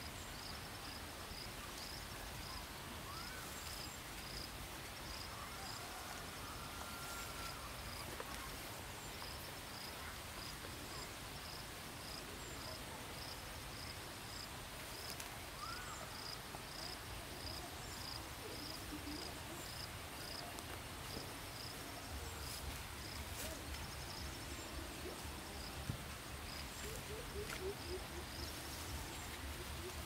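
An insect chirping steadily, high and short, about two chirps a second, over a faint outdoor hush. A few soft rising bird-like calls come through, and a lower, rapidly repeated call starts near the end.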